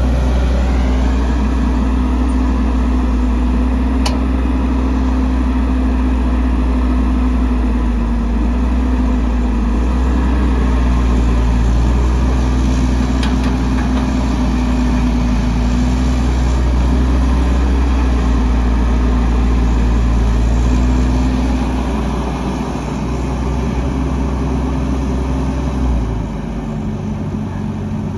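Diesel engine of heavy earthmoving machinery running steadily with a deep rumble. Its note drops and eases off near the end.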